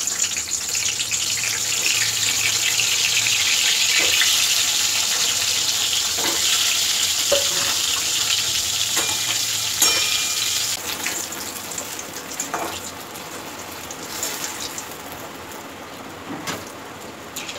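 Eggplant (brinjal) pieces frying in hot oil in a steel kadai: a loud, steady sizzle for about the first ten seconds that then settles to a quieter sizzle, with a few light knocks of pieces and a knife against the pan.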